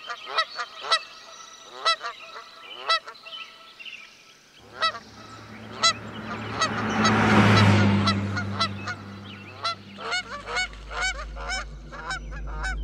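A flock of geese honking, short calls repeating every half second or so and coming thicker near the end, with a rushing noise and low hum that swells and fades in the middle.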